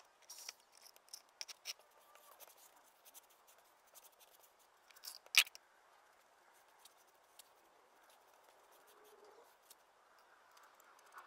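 Grout being spread over a mosaic of stone slices with a hand float: faint, gritty scraping with many small clicks of the tool edge against the stones, and one sharp click about five seconds in.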